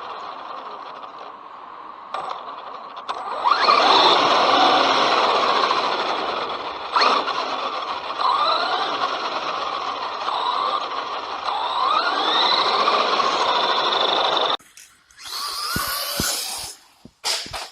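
Traxxas Rustler 4x4 VXL RC truck driving, its brushless electric motor whining up in pitch several times as it accelerates, over a steady rushing noise. In the last few seconds this gives way to short knocks and scuffs.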